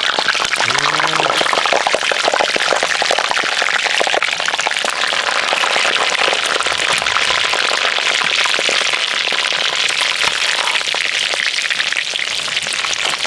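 Young potatoes and tomatoes frying in hot rendered lamb tail fat in a cast-iron sač: a loud, steady sizzle thick with fine crackles and spits.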